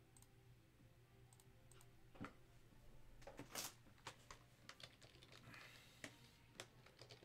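Faint typing on a computer keyboard, a scattered run of short key clicks.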